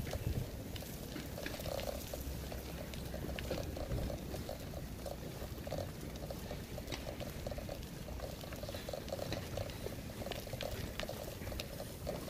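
Footsteps on a gravel towpath, short irregular crunches and knocks, over a steady low rumble of wind on the microphone.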